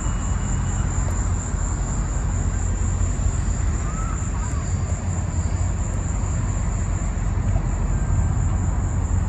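Summer evening outdoor city ambience: a steady low rumble of the city with a thin, unbroken high buzz of insects over it, and one faint short chirp about four seconds in.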